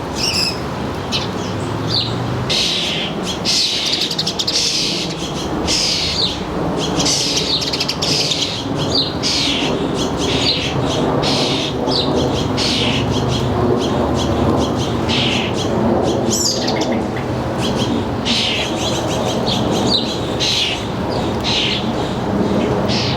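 Songbirds chirping over and over in short, high calls, with a steady low hum beneath.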